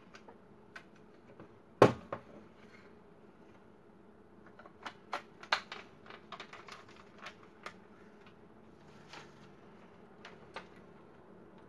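Plastic clicks and knocks of a laser toner cartridge drum unit being handled and fitted together on a wooden bench: one sharp knock about two seconds in, then a run of irregular small clicks and taps, and a last click near the end.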